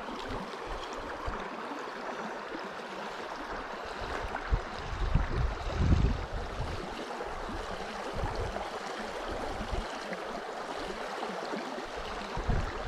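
Steady rushing of river water, with a few low thumps around the middle.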